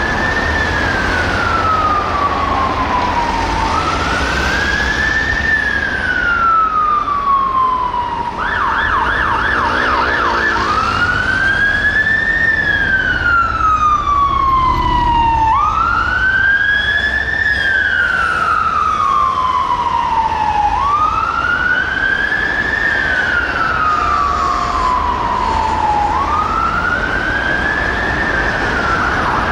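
Mercedes-Benz Econic turntable ladder fire engine's siren on a slow wail, each cycle rising quickly and falling slowly, about every five seconds. About eight seconds in it switches briefly to a fast yelp, then back to the wail, over a low rumble of traffic.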